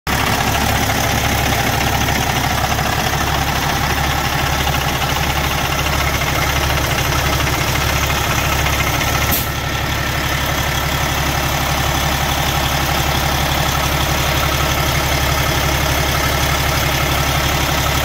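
Cummins truck diesel engine idling steadily, heard up close in the open engine bay. There is a brief click with a short dip in level about halfway through.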